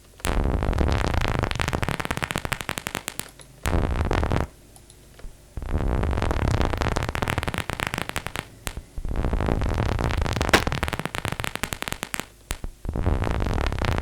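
Synthesized paper-crumpling sound from the Vital software synth: dense crackling clicks from arpeggiated noise, with a low rumble beneath. It plays in bursts of one to three seconds separated by short gaps.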